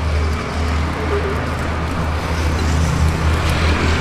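Steady low rumble with a background hum, without breaks or clear events.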